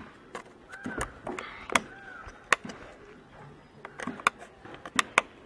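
Coconut-shell half and screw being handled against a painted PVC pipe: several sharp, irregular clicks and taps as the shell is pressed into place and the screw is set in its hole.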